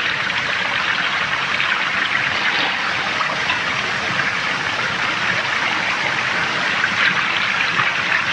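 Steady rushing noise, like running water, holding an even level throughout.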